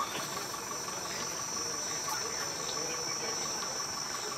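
Steady high-pitched insect drone over a faint, even outdoor background, with distant voices barely audible.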